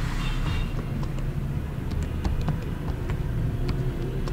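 A steady low background hum, with about a dozen light, sharp clicks of computer input scattered through it.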